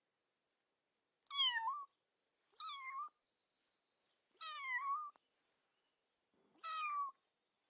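A kitten meowing: four short, high-pitched meows, each about half a second long, with pauses of a second or so between them.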